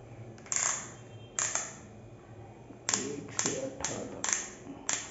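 18-position torque clutch collar of a 12 V cordless drill/driver being turned by hand, clicking from one setting to the next: about seven sharp clicks, unevenly spaced.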